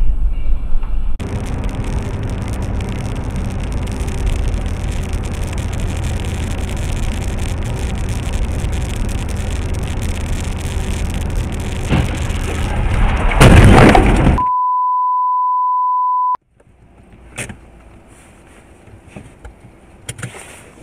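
Car driving at road speed, with steady road and engine noise, then a loud crash of a collision about thirteen and a half seconds in. A steady beep tone follows for about two seconds, a censor bleep, and then only faint cabin noise with a few small knocks.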